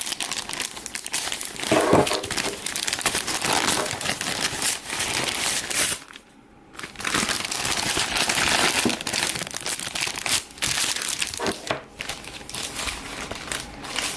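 Packaging being handled and opened by hand: continuous irregular crinkling and rustling with small crackles, pausing briefly about six seconds in.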